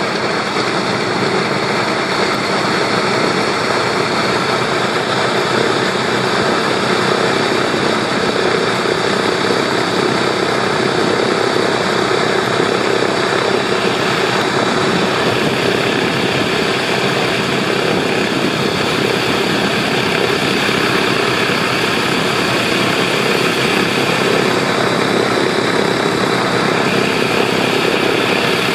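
B-17 bomber's Wright R-1820 Cyclone radial engines running steadily at idle on the ground during engine start-up.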